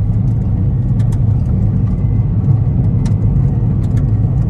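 Car driving along a gravel road: a steady low rumble of tyres and engine, with scattered sharp ticks.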